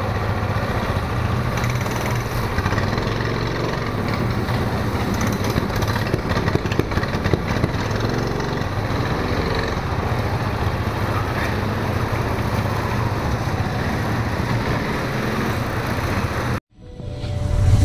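Go-kart engine running steadily. It cuts off abruptly near the end, and music comes in.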